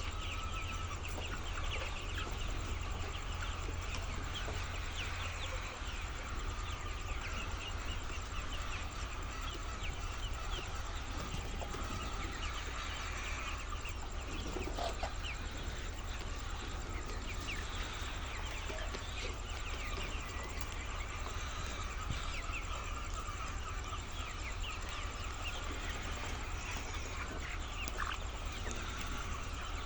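A large flock of laying hens clucking all at once in a continuous din, over a steady low hum.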